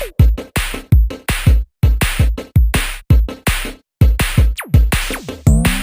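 Background electronic music with a steady drum-machine beat, and a quick falling swoop about four and a half seconds in.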